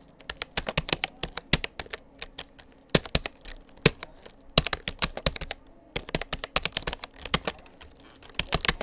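Touch typing on a Rapoo computer keyboard: rapid key clicks in quick runs, with short pauses between runs.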